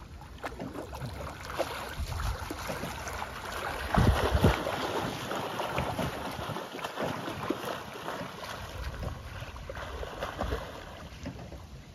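Two swimmers doing front crawl in lake water: arms slapping and kicking the surface in an irregular run of splashes. The splashing is loudest about four seconds in and grows fainter as they swim away.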